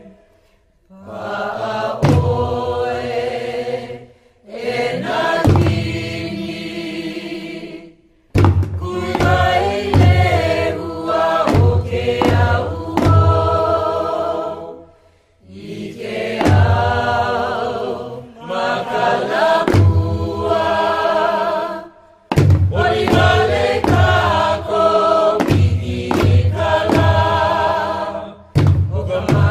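A group of voices chanting a Hawaiian mele in unison for hula, in phrases a few seconds long with short breaks between them, punctuated by sharp percussive strikes.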